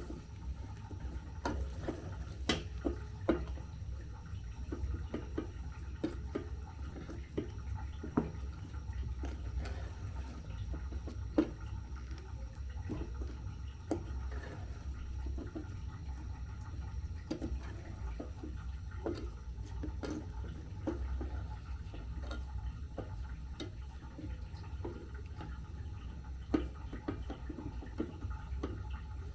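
Ugali cooking in a covered pot: a steady low rumble with scattered, irregular soft pops and ticks.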